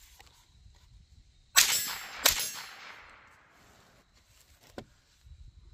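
Two shots from a semi-automatic .22 LR rifle (Derya TM22), fired in quick succession about two-thirds of a second apart. Each is a sharp crack, and the first rings out in an echo lasting about a second. These are fouling shots before a group.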